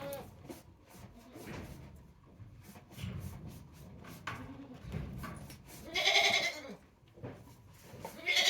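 Goats bleating: a loud bleat about six seconds in and another starting near the end, with shuffling and light knocking between.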